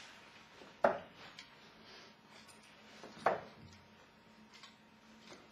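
Two darts striking a Winmau Blade 4 bristle dartboard, each a short sharp thud, about two and a half seconds apart.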